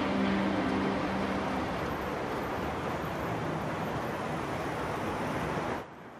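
Steady city traffic noise, an even hum of distant road traffic, with a few held music notes dying away in the first second or two. Near the end it cuts off abruptly to quieter indoor room tone.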